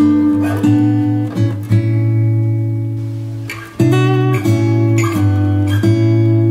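Background music: guitar strumming sustained chords, with a short lull just before a fresh strum about four seconds in.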